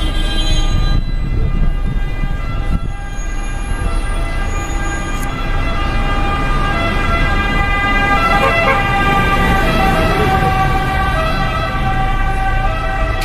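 Fire engine siren sounding continuously, with the low rumble of traffic and the bus engine underneath.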